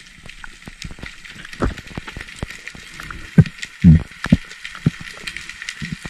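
Underwater sound picked up through a camera housing: a steady crackle of many fine clicks, with several dull low thumps, the loudest two a little past the middle.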